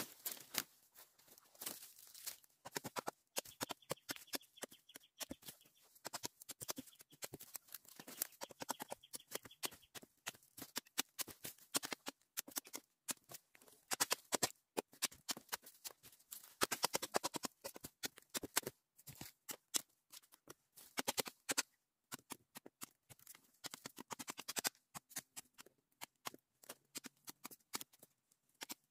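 Quick, irregular crackling and snapping of dry stalks, leaves, soil and roots as cassava plants are pulled up and their roots broken off.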